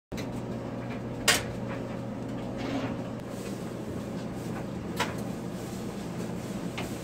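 Top-loading washing machine's lid and body being handled: a sharp clunk a little over a second in and a lighter knock about five seconds in, over a steady low hum.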